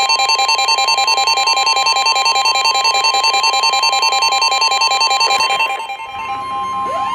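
Weather radio warning alert: a steady single alarm tone of about 1050 Hz under a rapidly pulsing electronic beep. The pulsing stops about six seconds in, and a siren begins winding up, rising in pitch, near the end.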